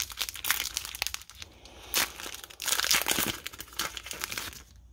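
Wrapper of a trading card pack crinkling as it is torn open and pulled off, with louder tearing about two seconds in and again around three seconds.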